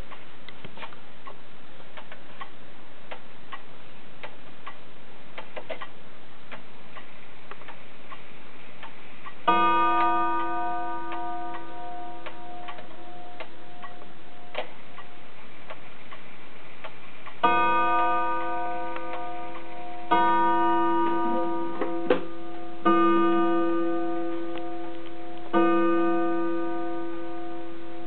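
A 1912 Junghans wall clock ticking, then striking on its gong as its minute hand is turned forward. A single stroke comes about ten seconds in and rings out for several seconds, typical of the half-hour strike. From about seventeen seconds a slow run of strokes follows, some two and a half to three seconds apart, each ringing and fading: the clock counting the hour of five.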